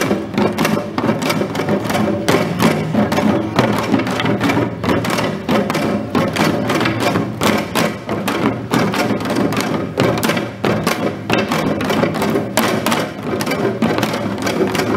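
Korean janggu hourglass drums and small sogo hand drums played together in a fast, driving nongak rhythm, with dense, steady strokes throughout.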